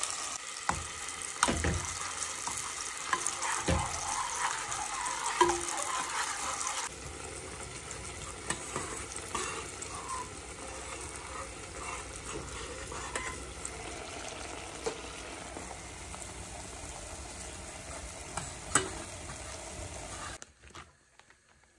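Food sizzling in hot oil in a pot while being stirred, with occasional knocks of the utensil against the pot. The sizzle drops to a lower level about seven seconds in and cuts off near the end.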